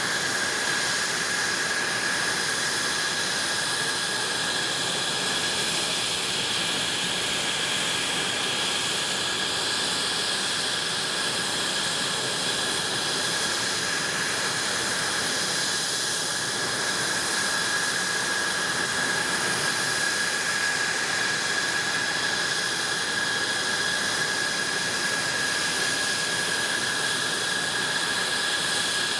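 F-16 fighter's General Electric F110 turbofan idling, a steady high whine over a rushing hiss.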